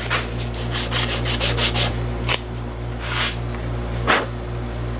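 Sandpaper rubbing new cork on a saxophone neck: quick back-and-forth strokes, about five or six a second for the first two seconds, then three slower single strokes. This is the final smoothing of the neck cork so the mouthpiece fits.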